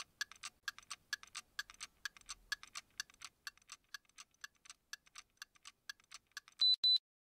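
Clockwork ticking, sharp clicks at about four a second that often fall in pairs, followed near the end by two short high beeps, the loudest thing here.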